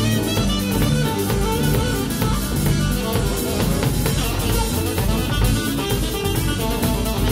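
Live band playing a groove, with drum kit and electric guitar to the fore over bass.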